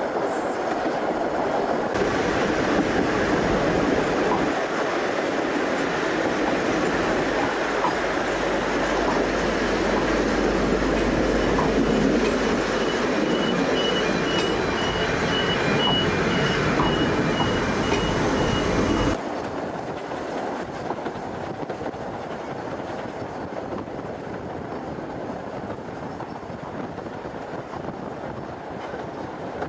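Narrow-gauge steam train of the Isle of Man Railway running along the line: a steady rumble and clatter of the wheels on the rails. The level drops suddenly about two-thirds of the way through and stays quieter after.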